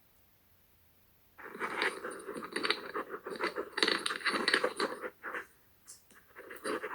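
Scratchy, rustling handling noise on a microphone: rubbing and scraping with many small clicks. It starts abruptly about a second and a half in and dies down to a few scattered ticks near the end.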